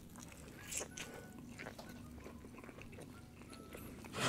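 Quiet chewing with scattered soft mouth clicks, and a sharper click right at the end.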